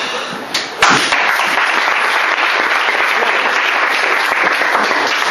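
Audience of seated students applauding, the clapping starting sharply about a second in and then holding steady.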